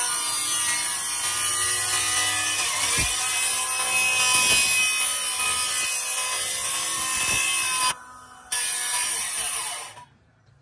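A power tool cutting, a steady harsh noise that cuts out briefly about eight seconds in and stops suddenly near the end.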